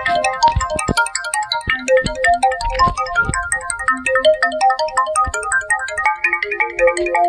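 Electronic phone ringtone: a quick, bright melody of short repeating bell-like notes over a few low drum hits. About six seconds in the tune changes to a new pattern over a held lower note.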